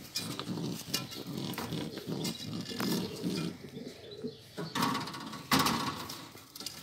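Domestic pigeons cooing: low coos repeating in a quick rhythm for about four seconds, followed by a few louder, sharp noisy bursts about five seconds in.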